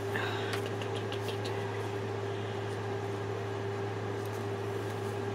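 Steady low hum in the room, with a short run of light clicks and rustles about half a second to a second and a half in as a nylon dog collar's webbing is worked through its plastic buckle and slide adjuster.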